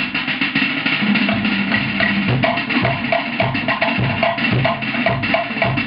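Cook Islands drum ensemble playing a fast, driving rhythm: rapid sharp strokes on wooden slit drums over a deeper drum beat.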